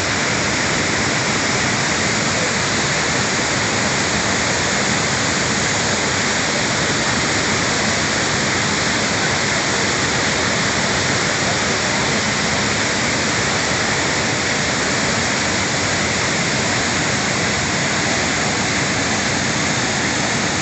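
Mountain waterfall pouring: a loud, steady rush of falling water that stays even throughout.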